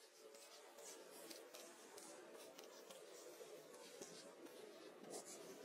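Near silence: faint room tone with light scratching and scattered small clicks.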